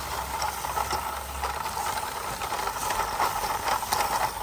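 A plastic toy sports car pushed by hand over grass, with faint rustles and a few light clicks, over a steady background hiss.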